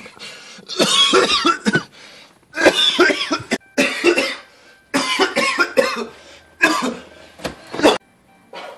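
A man coughing hard in repeated fits of harsh coughs, which stop about eight seconds in.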